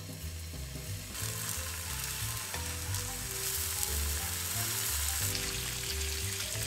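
Thick-cut pancetta slices sizzling in rendering fat on a hot flat griddle pan as strips are laid down with tongs, the sizzle swelling sharply about a second in and holding steady.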